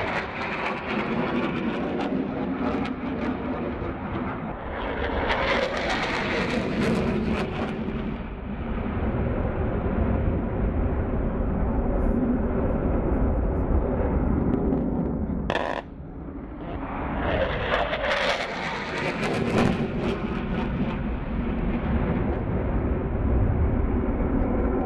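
Fighter jet flying low past, a continuous deep rumbling engine noise, with a sharp brief drop about two-thirds of the way through.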